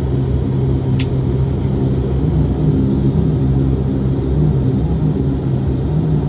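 Steady low engine drone with rumble, and one short click about a second in.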